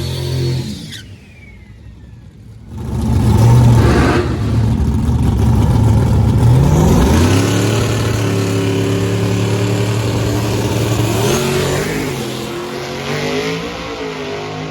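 Drag racing car launching hard and accelerating down the strip at full throttle, its engine note climbing and then holding steady, with a change in pitch near the end as the run fades away.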